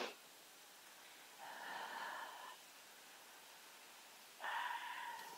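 Petrol nozzle squirting fuel into a small motorbike tank in two short hissing bursts of about a second each, after a single click.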